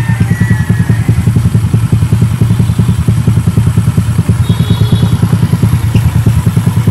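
Honda Wave S 110's single-cylinder four-stroke engine, rebuilt with a 54 kit, running bare on a test stand and given throttle by hand at the carburettor. Loud, rapid, even firing pulses.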